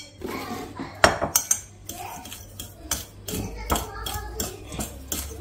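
A utensil stirring dry sugar and ground almond in a mixing bowl, with irregular clinks and knocks of metal against the bowl.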